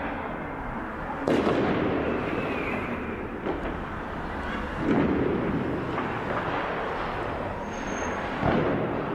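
Fireworks and firecrackers going off in a city street: three heavy bangs, about three and a half seconds apart, over a steady din.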